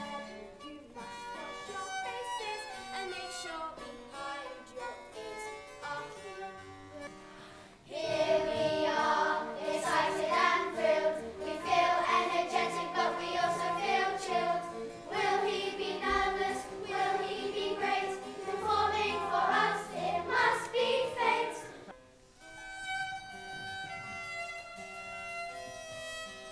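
Live Baroque-style chamber music: harpsichord notes for the first few seconds, then the ensemble comes in much louder at about eight seconds, and a solo violin plays over the harpsichord after a sudden drop at about 22 seconds.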